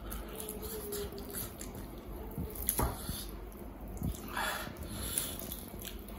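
Wet chewing and lip-smacking from a mouthful of mutton leg curry, with a few sharp smacks and the squish of meat being pulled apart by hand.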